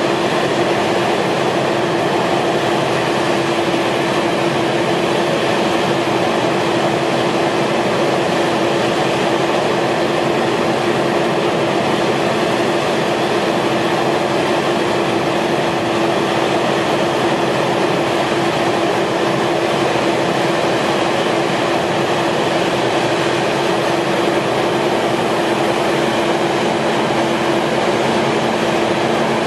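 Sandvik Tamrock Titon 600 DTH drill rig running steadily: a loud, even machinery noise with a constant hum.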